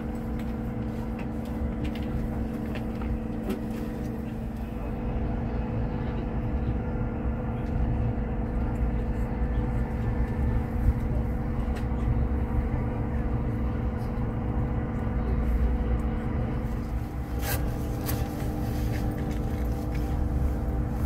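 Inside the passenger car of a moving SJ X2000 electric high-speed train: a steady low rumble of running with a constant hum and faint scattered clicks, and a brief hiss about three quarters of the way through.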